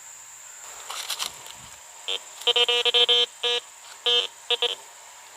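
Teknetics Eurotek metal detector sounding its target tone as the coil passes over buried metal: a short beep about two seconds in, a longer broken tone, then three short beeps, all at one steady buzzy pitch.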